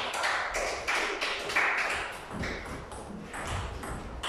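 Table tennis doubles rally: the ball clicking sharply off the rackets and the Stiga table, many quick hits in an uneven rhythm.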